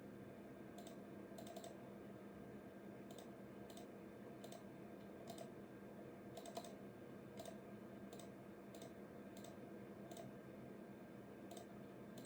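Faint mouse-button clicks at irregular intervals, some in quick pairs, as desktop patterns are clicked through on a Macintosh SE, over a steady low hum.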